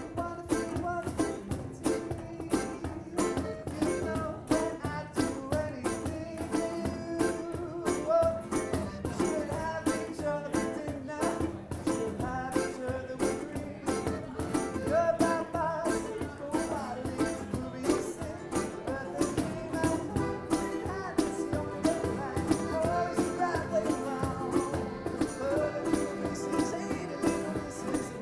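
Acoustic band playing live and unplugged: piano accordion and strummed acoustic guitars over a steady cajon beat.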